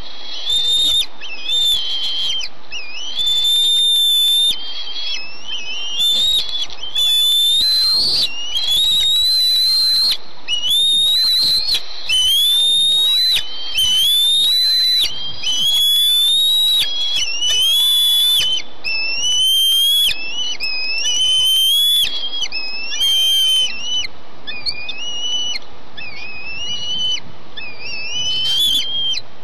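Bald eaglets begging for food: high, whistled calls repeated about once a second, each a short note that rises and then levels off.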